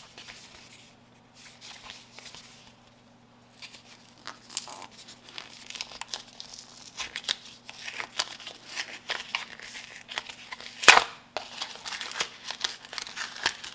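Hands handling crinkly plastic: scattered crackling and clicking that picks up a few seconds in, with one sharper, louder click about eleven seconds in.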